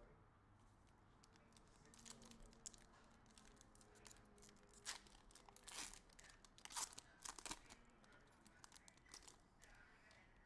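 Foil wrapper of a football card pack being torn open and crinkled, in a series of short crackling bursts that are loudest in the middle.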